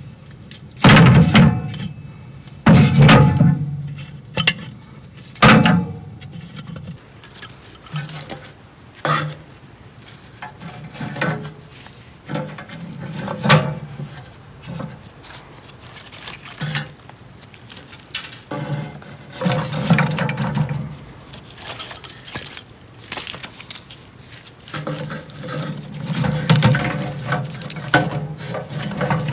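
Split firewood and dry sticks being laid into a metal wood stove's firebox: wooden knocks and clatter against the metal grate and walls. The loudest knocks come three times in the first six seconds, followed by lighter, scattered clicks and rustling of twigs.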